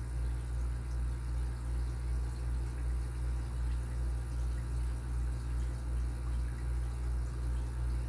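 A steady low hum with a slight, even throb, as from a motor or fan running. No distinct pick clicks stand out above it.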